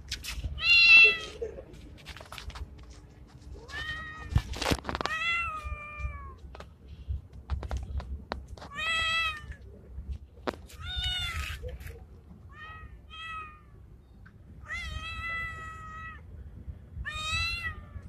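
A male street cat meowing about eight times in drawn-out calls, the loudest about a second in and two short ones close together past the middle. A couple of sharp clicks sound about four and a half seconds in.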